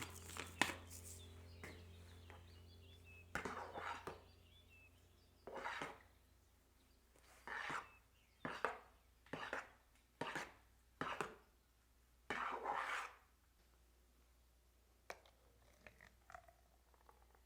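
Knife cutting food on a cutting board: about eight separate slicing strokes, roughly a second apart, then a few light taps near the end.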